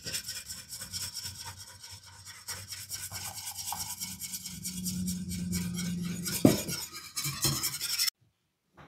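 Wire balloon whisk beating half-and-half in a glass mixing bowl: rhythmic scraping strokes, about five a second, as more half-and-half is poured in from a carton. A brief knock about six and a half seconds in, and the sound cuts off abruptly about eight seconds in.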